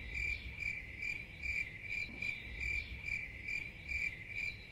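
Cricket chirping sound effect: one high chirp repeated evenly about twice a second. It cuts in and out abruptly in place of the interview sound, the 'crickets' gag for a non-answer.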